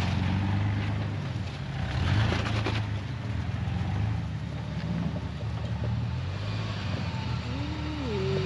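Jeep TJ engine running low and steady at crawling pace, with a cluster of clattering knocks about two seconds in and a short squeal that rises and falls near the end.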